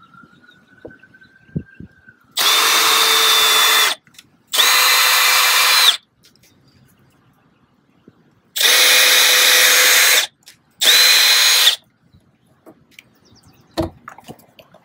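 Milwaukee cordless drill boring holes through the bottom of a plastic hard case: four short runs in two pairs, each a steady whine that starts and stops cleanly.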